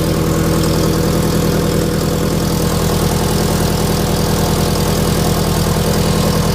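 Scion FR-S flat-four boxer engine idling steadily through an unequal-length aftermarket header, with exhaust leaking past the overpipe gasket.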